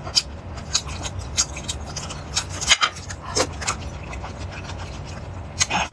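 Eating sounds: scattered crackling clicks of cooked lobster shell being handled and pulled apart by hand, along with chewing.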